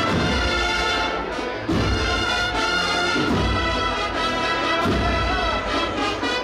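Brass band playing a Holy Week procession march: sustained brass chords over deep drum strokes about every second and a half.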